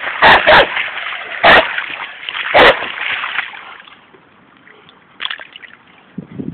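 Splashing through shallow floodwater in a field, with four loud, sharp splashes in the first three seconds, then quieter, lighter splashing.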